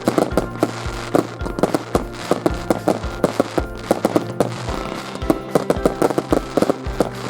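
Fireworks going off in quick succession, several sharp bangs and crackles a second, with music playing underneath.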